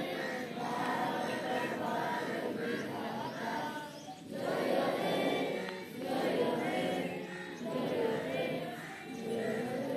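A large group of students and cadets singing together in unison, with a short dip in the singing about four seconds in.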